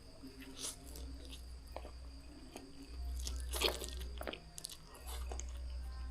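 Close-miked chewing and mouth sounds of a person eating spicy noodles, with scattered small clicks and smacks, over a low hum that comes and goes.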